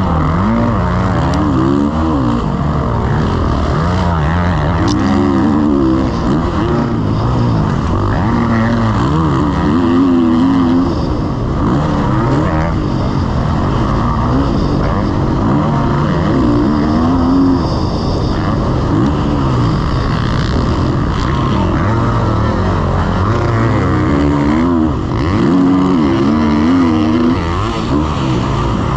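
Motocross bike engine racing flat out, its pitch sweeping up and down every second or two with throttle and gear changes, heard close from a camera mounted on the bike.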